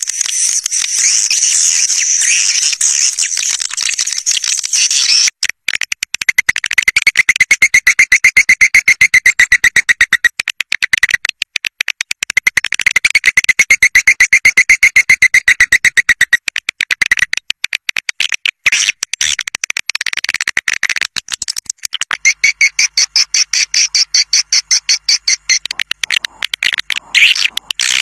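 Swiftlet calls played as a caller sound to draw a flock: rapid chirping and clicking twitters. A dense, high twittering fills the first few seconds, then come bouts of fast trills that swell and fade.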